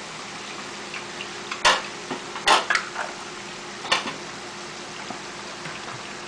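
Chicken pieces deep-frying in a pot of oil, a steady sizzling hiss. A spoon clatters sharply against a frying pan three times, about one and a half, two and a half and four seconds in, as hot chili sauce is spooned into the sauce.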